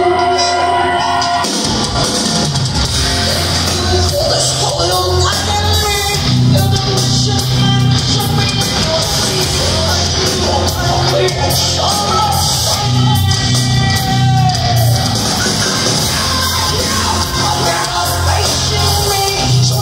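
Live heavy metal band playing loud in a large hall, with a singer's vocals over it. A sustained, lighter passage gives way to heavy bass and drums about a second and a half in.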